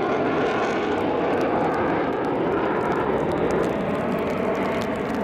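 F-4 Phantom II jet fighters flying over in formation: steady jet engine noise from their J79 turbojets, easing slightly near the end.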